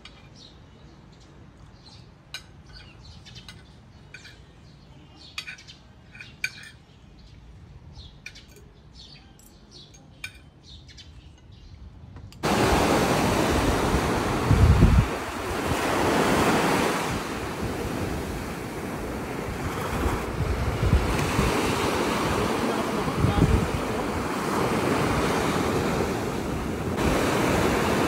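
Faint scattered clicks and clinks for about twelve seconds, then a sudden cut to loud surf: ocean waves breaking and washing up a sandy beach, with wind gusting on the microphone.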